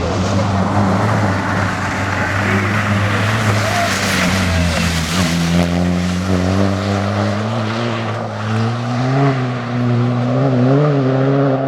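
Rally car engine running hard on a tarmac stage, its note dipping and then climbing from about halfway through as it accelerates, with the pitch wavering up and down near the end.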